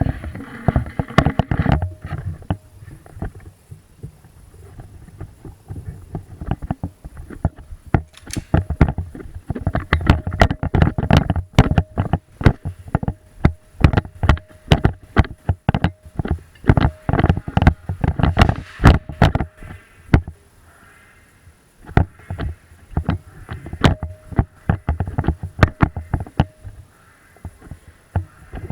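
A rapid, irregular run of sharp knocks and clicks from an airsoft player on the move, with a quieter stretch about two thirds of the way through.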